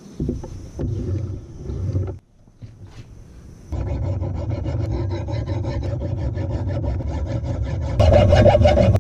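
Hand file rasping across the steel of an antique axe head clamped in a bench vise, taking the nicks out of the blade. A few uneven scrapes come first, then after a short pause the filing settles into a steady rasp about four seconds in, growing louder near the end.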